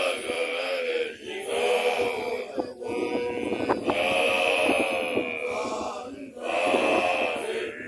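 Basotho initiates (makoloane) chanting together, male voices in sustained phrases that break off briefly every couple of seconds.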